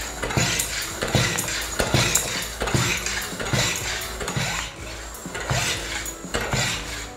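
Hand air pump worked in steady strokes, a clattering stroke roughly once a second, pumping air into a gas pipe to pressurise it for a leak test.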